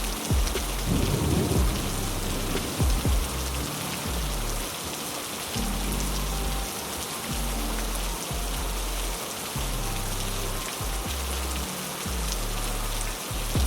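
Heavy rain falling steadily, an even hiss, with a low sustained drone underneath that shifts pitch every second or two and a couple of brief low thumps about one and three seconds in.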